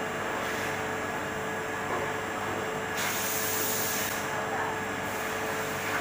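Helium leak testing machine running with a steady hum. About halfway through, a hiss of air starts suddenly and lasts about a second, and another hiss rises near the end.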